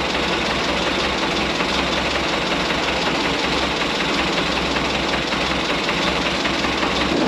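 1927 White dump truck's flathead engine running steadily.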